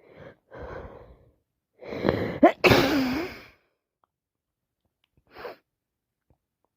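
A person with a wet head cold sneezing once: two short breaths, then an intake of breath that rises in pitch and builds, then the loud sneeze burst a little over two and a half seconds in. About two seconds later comes one short breath.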